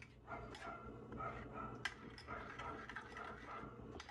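A dog whimpering and yipping faintly, with a few sharp clinks of a spoon against a glass bowl, one louder about two seconds in.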